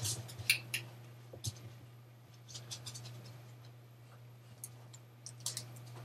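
Faint, short scratches and taps of a pen stroking a drawing surface as arrowheads are drawn, a few quick strokes at a time with gaps between, over a steady low electrical hum.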